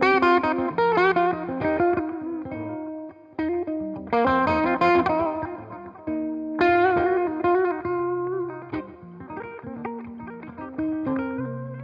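1980 Greco EG-500 Les Paul-style electric guitar with Maxon humbucking pickups, played through an amp with effects. Chords are struck and left to ring every second or two, with lighter single notes in between.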